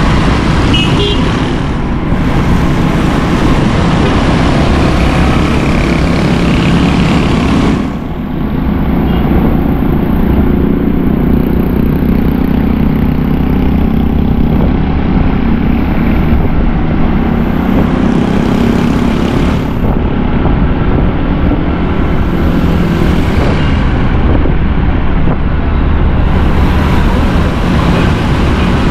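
Motorcycle running steadily at road speed, its engine note under a heavy rush of wind on the microphone, with a brief dip in loudness about eight seconds in.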